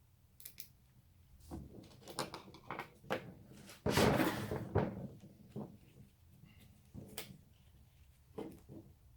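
Plastic zip ties being handled and pulled tight around a steering wheel: scattered clicks and knocks, with a longer rasping zip about four seconds in.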